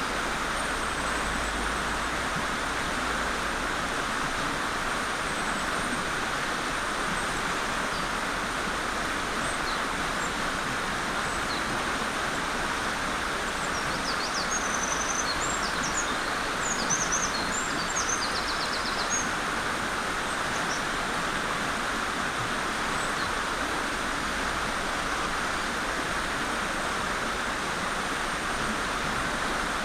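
Mountain stream rushing steadily over rocks. About halfway through, a Eurasian wren sings a burst of rapid, high-pitched notes for several seconds, with a few faint high chirps elsewhere.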